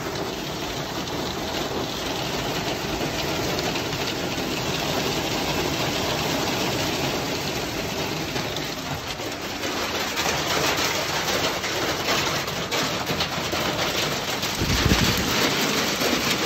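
Hail falling hard: a dense, steady clatter of hailstones striking the pavement, growing more crackly partway through. A dull thump comes near the end.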